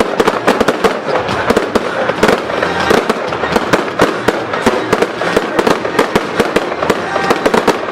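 Fireworks display finale: a dense barrage of overlapping bangs and crackles, several a second, with no pause.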